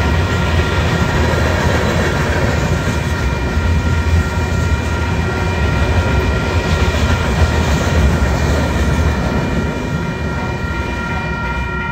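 Freight train cars rolling past a grade crossing with a heavy low rumble, while the crossing bell rings steadily over it. The rumble eases a little near the end.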